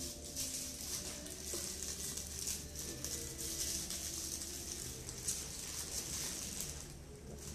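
Paper food wrapper rustling and crinkling as it is unwrapped by hand, over a low steady hum.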